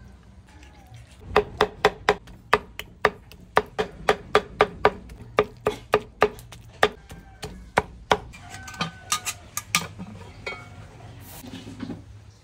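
Knife chopping food on a wooden cutting board: sharp knocks about three a second in short runs, starting about a second in, growing sparse and irregular and stopping near the end.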